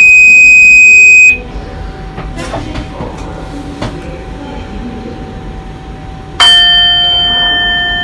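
Warning tones from a Bombardier TRAXX F160 MS (class 186) electric locomotive. A loud, steady, high-pitched alarm-like tone stops about a second in, over a steady lower whine. About six seconds in, a loud chime of several tones rings out and slowly fades.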